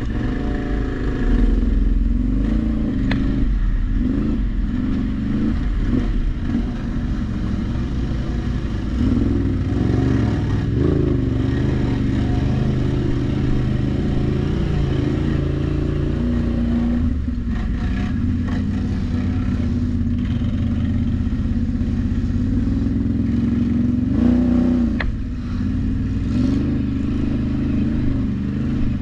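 ATV engine running and revving up and down under changing throttle as the machine is ridden off-road, with occasional clatter and knocks.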